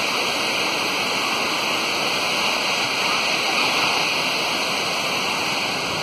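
Steady rushing of a waterfall and its stream, an even wash of falling water with no breaks.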